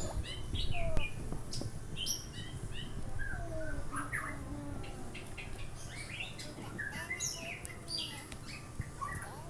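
Birds chirping: many short, quick calls overlapping from different birds, over a low steady rumble.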